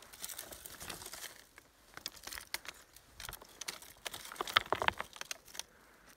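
Loose stones and dry twigs crunching and clicking as someone moves over rocky ground and rummages among them by hand. The crunches and clicks come irregularly and are busiest a little after four seconds in.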